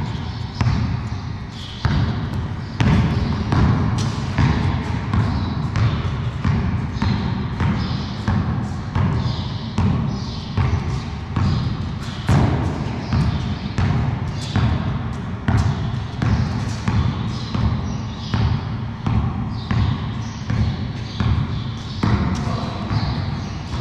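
Basketball being dribbled on a concrete floor: repeated sharp bounces, about two a second.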